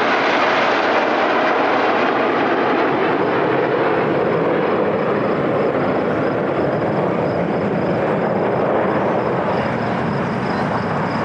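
Formation of RAF Red Arrows BAE Hawk T1 jets with Adour turbofans flying past, a loud steady jet roar that eases slightly towards the end, with a faint high whine joining about a third of the way in.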